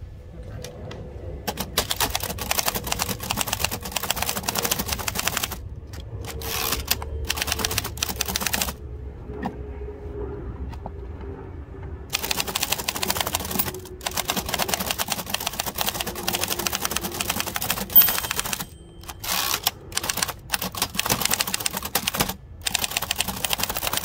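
1925 Remington Model 2 portable typewriter being typed on, its typebars clacking against the platen in quick irregular runs, with a few seconds' lull near the middle. About eighteen seconds in, one louder ringing ding of the margin bell is followed by brief pauses.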